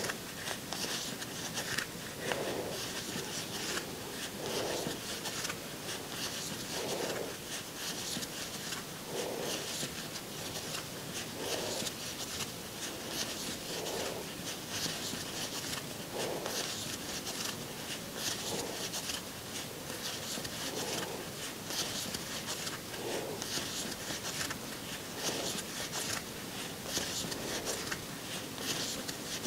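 Crochet hook and yarn rubbing as single crochet stitches are worked close to a clip-on mic: a faint, continuous rustle and scratch, with a soft low swish about every two seconds.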